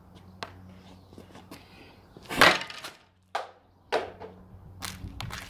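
A bandy stick strikes a bandy ball in a lifted shot, the blade meeting the ball from underneath: one sharp, loud crack about two and a half seconds in. Two softer knocks follow about a second and a second and a half later.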